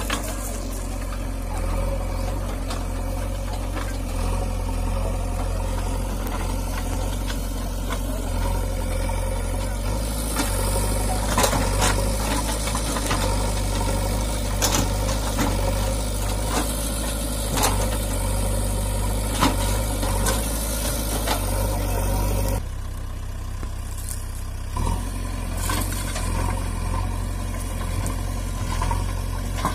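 JCB 3DX backhoe loader's diesel engine running steadily while the backhoe arm works, with scattered knocks and clatter. The sound dips briefly about 23 seconds in.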